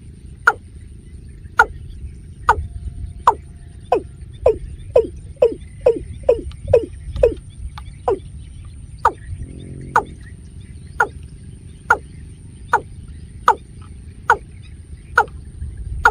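Watercock calling: a series of short notes, each falling in pitch, at first about once a second, quickening to two or three a second in the middle, then slowing again. Beneath them is a steady low rumble and a faint, constant high whine.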